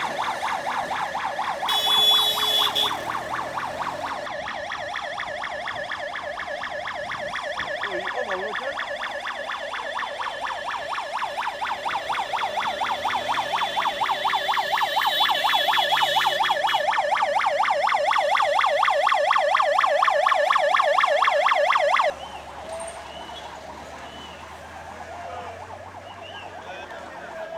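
Electronic siren in a fast warble, growing louder for about twenty seconds, then cutting off suddenly. Quieter outdoor background noise follows.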